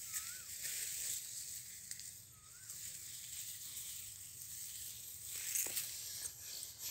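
Dry, ripening rice stalks rustling and brushing against the phone as someone pushes through them: a steady hiss, with a few light snaps and clicks near the end.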